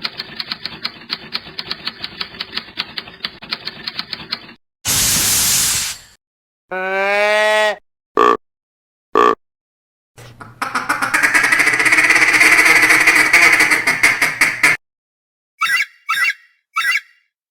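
A run of separate short sound effects. First comes a fast clattering of about ten clicks a second over steady tones for several seconds. Then a burst of hiss, a pitched glide, two short beeps, a longer buzzing stretch and three quick chirps.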